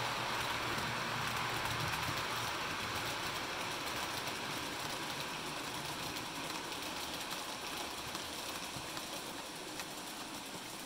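OO gauge model train running past: a rake of hopper wagons rolling along the track with a steady whirring rumble that slowly fades as it moves on.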